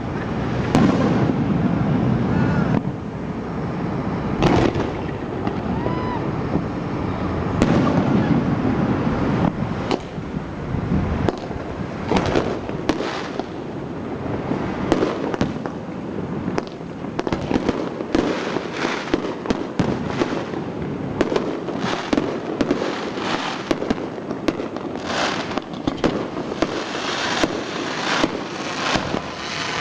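Aerial fireworks display: repeated bangs of shells bursting, with crackle between them. Over the second half the reports come thick and fast as dense, rapid crackling.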